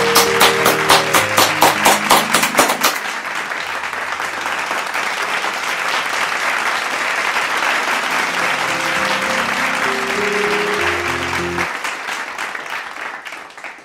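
Hands clapping in quick, steady claps for about three seconds, then the dense sound of many people applauding over background music, fading out at the end.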